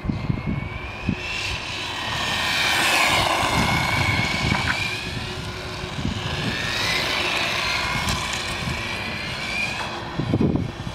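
Turnigy TrackStar brushless electric motor (3000KV, 80 A ESC) on an RC car, a high-pitched whine that rises and falls twice as the car accelerates and passes, over tyre noise on concrete. Low buffeting near the start and end.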